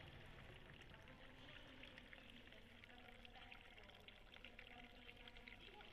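Faint trickling water from a miniature working fountain in a nativity scene.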